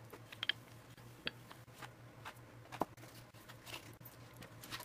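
Faint handling sounds of rolling out dough with a wooden rolling pin on a wooden board: soft rubbing and scattered light taps, with a few sharper single knocks, over a low steady hum.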